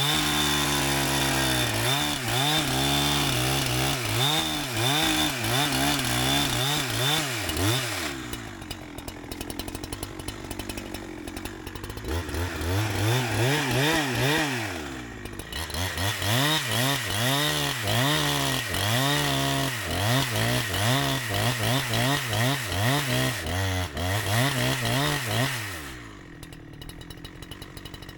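Holzfforma 372XP, a two-stroke Husqvarna 372XP clone chainsaw, working in wood with its engine speed repeatedly rising and falling, then dropping back to a lower, quieter idle twice: about a third of the way in and near the end. The new saw is being run rich while it is broken in.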